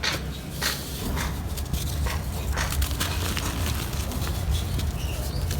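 Dry, crispy chunks of dusty dirt being crumbled: an irregular run of gritty crunches and crackles over a steady low rumble.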